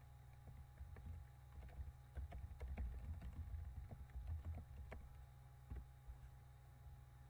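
Faint typing on a computer keyboard: a quick run of key clicks from about a second in until about five seconds, then one more click near six seconds. A steady low hum runs underneath.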